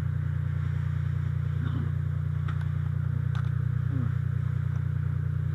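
Fire engine's engine running with a steady low drone, unchanged throughout, with a couple of faint clicks in the middle.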